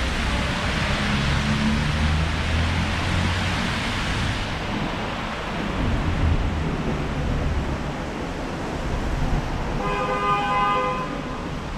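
Street traffic: a steady wash of passing vehicles, fuller and hissier with a low rumble over the first few seconds, then thinner. Near the end a car horn sounds once for about a second and a half.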